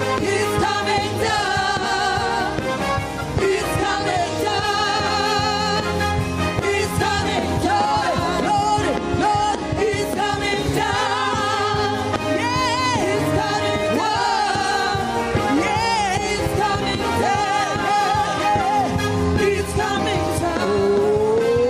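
Loud gospel worship singing: several voices with a strong vibrato over a steady instrumental backing. One voice slides up in pitch near the end.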